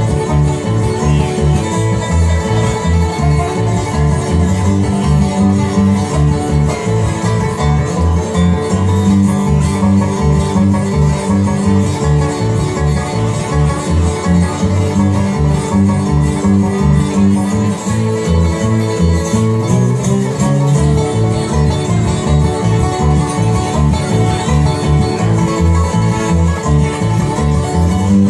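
Bluegrass band playing an instrumental break, with banjo, guitar and fiddle over a steady beat.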